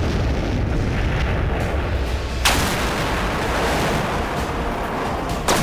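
Detonation of 5,000 pounds of high explosives: a loud, continuous deep rumble, broken by two more sudden sharp blasts about two and a half and five and a half seconds in.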